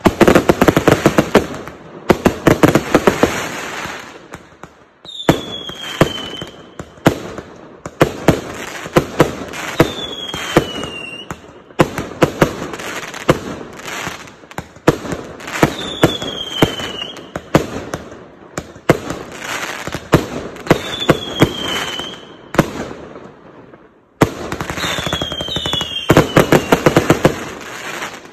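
A 0.8-inch 399-shot fireworks cake firing rapid volleys of shots that burst and crackle overhead, broken by brief lulls. A short falling whistle rises above the shots about every five seconds.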